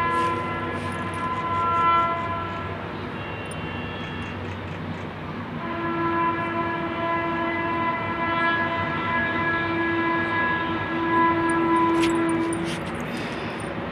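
A sustained pitched tone held on one steady note for many seconds, with a few short breaks.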